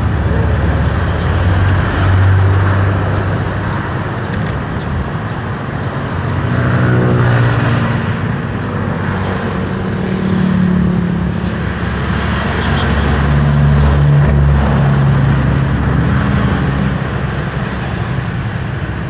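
Road traffic: cars and other motor vehicles running and passing along a busy road, a steady engine hum and tyre noise that swells as vehicles go by, loudest around two, seven, ten and fourteen seconds in.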